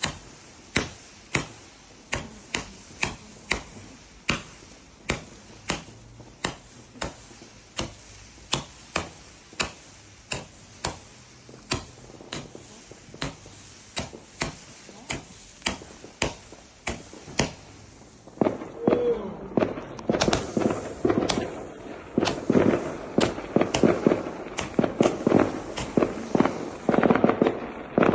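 Fireworks going off in a steady run of sharp bangs, about two a second. About two-thirds of the way through they turn into a faster, denser barrage.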